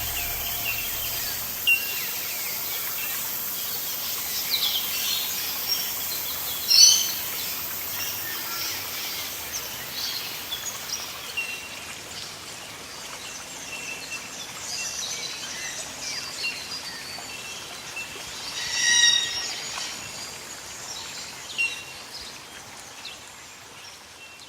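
Outdoor ambience of many birds chirping and calling at once. Two louder calls stand out, one about seven seconds in and one near nineteen seconds. A steady high hiss under the birds fades out about halfway through.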